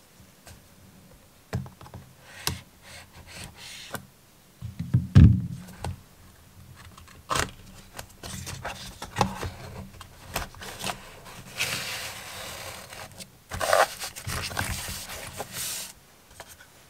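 Hands handling a cardboard knife box: scraping and sliding as the inner box is pushed out of its sleeve, with scattered taps, one heavier thump about five seconds in, and longer rustling scrapes near the end.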